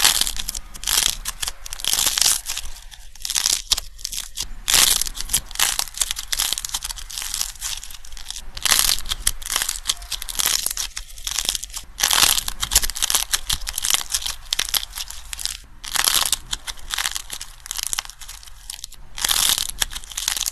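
Dried clay figures coated in nail polish being squeezed and kneaded by hand, the hard shell crunching and crackling as it breaks up into soft clay. The crackling comes in rapid, irregular clusters.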